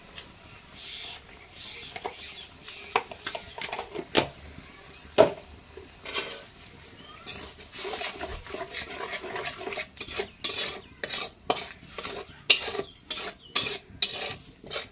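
Metal spatula scraping and clinking against a steel kadai while stirring a thick frying spice paste: irregular scrapes and knocks, coming faster and louder in the second half.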